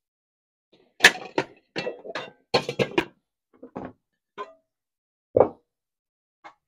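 Pots and pans being handled and set down: a quick run of knocks and clinks, some with a short metallic ring, for about two seconds, then a few scattered single knocks.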